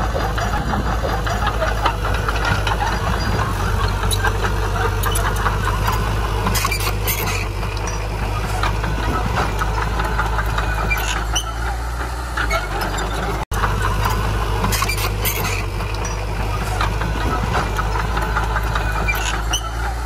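Heavy diesel engine of earthmoving machinery running steadily, with a few short high-pitched metallic squeaks over it. The sound cuts out for an instant about two-thirds of the way through.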